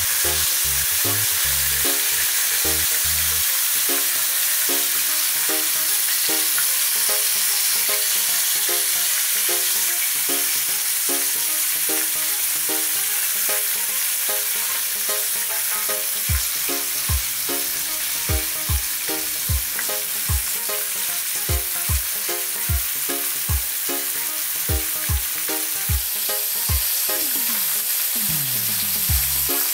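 Horse-eye jack fish pieces sizzling as they fry in oil in a pan, a steady crackling hiss. Background music with a repeating bass line plays under it, and a kick-drum beat joins about halfway through.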